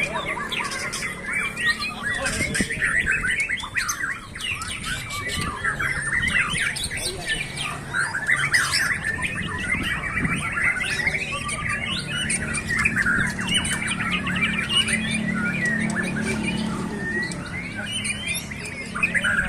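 White-rumped shamas (murai batu) singing and calling over one another in a dense, continuous chorus of quick chirps, whistles and squawks.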